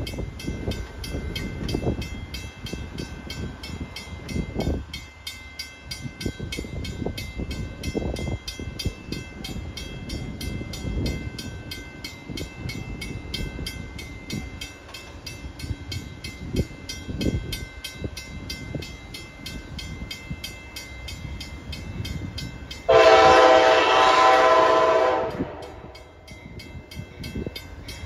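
Wind buffeting the microphone for most of the time, then about 23 seconds in the approaching CT Rail train's horn sounds one loud, chord-like blast of about two seconds, with a second blast starting at the very end.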